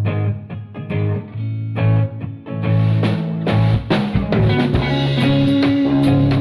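Music with plucked guitar and bass; drums come in about two and a half seconds in and the band fills out.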